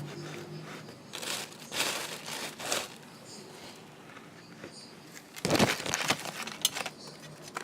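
Small packet of baking ingredient crinkling as it is handled: several short rustles, with a louder burst of crinkling about five and a half seconds in.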